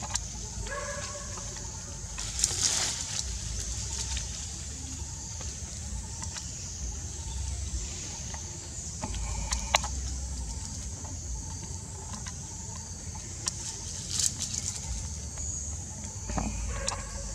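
Forest ambience: a steady high insect drone, a low wind rumble on the microphone, and a few brief crackles of leaves or branches.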